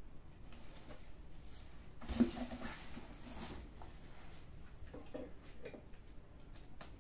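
Handling noise: rustling with one sharp knock about two seconds in, then a few softer knocks.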